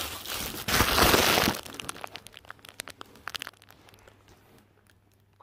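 Crinkling and rustling as a puppy roots through a fabric snuffle mat lying on cardboard: a loud rustle about a second in, then scattered crackles and taps that grow fainter and die away.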